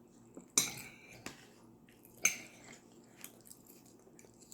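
Eating sounds: quiet chewing, with two sharp clicks that ring briefly, about a second and a half apart.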